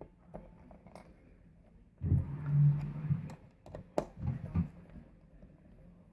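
Phillips screwdriver driving a strike plate screw into a door frame: small clicks and ticks of metal on metal, with a louder low rumble lasting about a second, two seconds in, and a sharp click about four seconds in.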